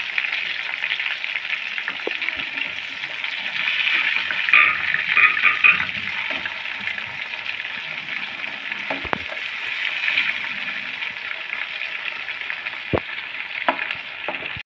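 Prawns deep-frying in hot oil in a metal kadai, a steady sizzle that swells for a couple of seconds near the start. A few sharp clicks of a slotted spatula against the pan as the prawns are turned over.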